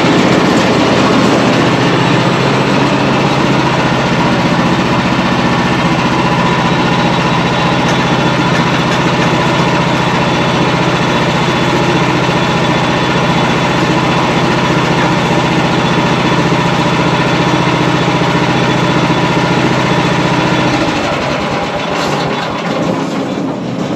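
Frontier sawmill's gasoline engine running steadily. About 21 s in, its deep drone drops away and the sound thins out.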